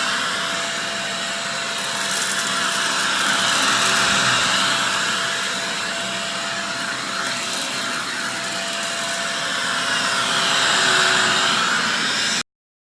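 Shark vacuum cleaner running steadily over fine, crunchy dirt, its sound swelling and fading slowly every few seconds, with crackles of grit being sucked up a couple of seconds in. It cuts off abruptly near the end.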